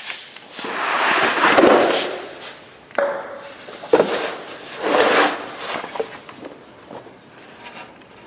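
A wrench working the lower mounting nuts off rear shock absorbers: a rasping, scraping noise for about two seconds, then several separate knocks and clunks of metal about a second apart.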